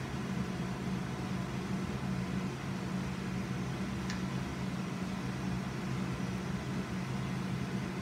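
Steady hum of a kitchen ventilation fan running, with one faint click about four seconds in.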